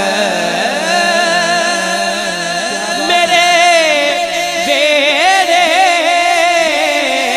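Male voice singing a Punjabi naat solo into a handheld microphone, with long held notes ornamented by wavering, curling runs, busiest in the second half.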